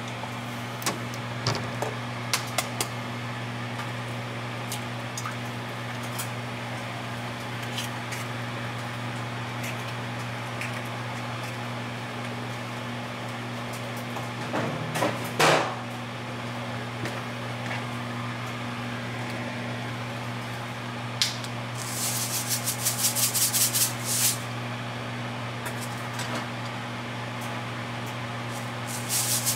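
Kitchen sounds at an electric stove: a steady low appliance hum, scattered light clicks and knocks, and a louder knock or scrape about halfway. Near the end a sea salt grinder is twisted in quick gritty bursts, twice.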